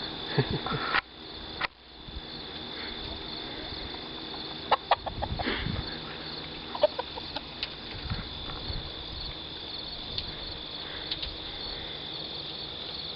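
Chickens clucking in short bursts, a few times, over a steady high chirring of crickets.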